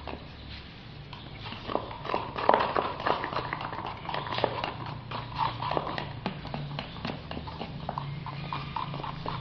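A wooden stirring stick rapidly clicking and scraping against the walls of a cut-down plastic bottle as resin is mixed with its catalyst, a quick irregular run of knocks.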